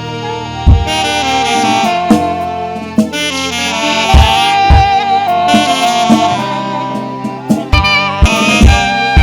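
Saxophone playing a slow melody of long held notes over sustained keyboard chords, with a kick drum thumping now and then.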